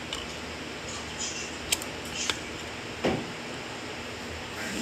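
Wooden chopsticks clicking against a plastic plate a few times while picking up noodles, with a duller knock about three seconds in, over a steady hiss.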